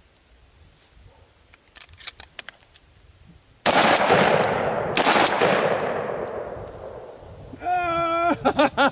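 Two blasts from a short-barreled Remington 870 pump-action 12-gauge shotgun, about a second and a half apart, each followed by a long echo that fades over a few seconds.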